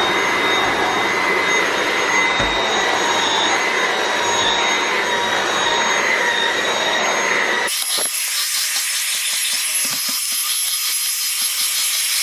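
A Dyson V8 Absolute cordless stick vacuum runs steadily with a high motor whine as its small cleaner head is worked over a carpeted stair runner. A little over halfway through, the sound changes abruptly to a thinner, higher-pitched hiss and whine.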